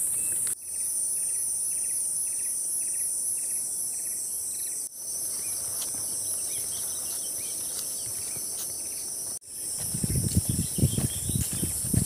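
Steady high-pitched chorus of insects, with a repeated chirping call about twice a second in the first few seconds. The chorus drops out briefly twice. About ten seconds in, footsteps on a dirt trail start.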